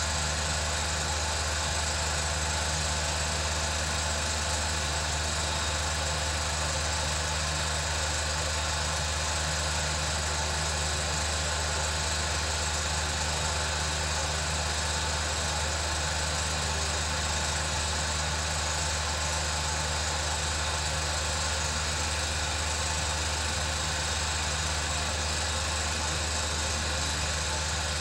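8mm film projector running steadily: a constant motor hum with a whirring mechanical hiss that does not change.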